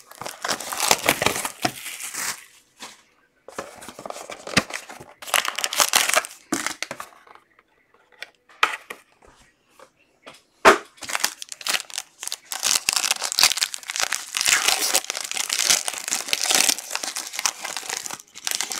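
Plastic shrink-wrap being torn off a sealed Panini Playbook football card box and crumpled, in irregular bursts of crinkling and tearing, with one sharp knock about halfway through and a long stretch of crinkling near the end as the wrapped pack inside is handled.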